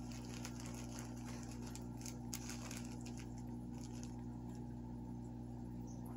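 Cat pawing and shifting on a fabric chair cushion: soft scratching and rustling ticks, mostly in the first four seconds, over a steady low hum.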